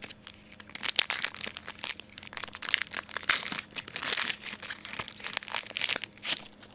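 Crinkling of a trading card pack's plastic wrapper as it is handled and opened, a dense run of crackles lasting about six seconds.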